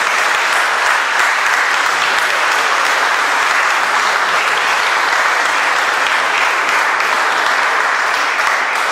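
An audience applauding steadily, a dense sustained clapping.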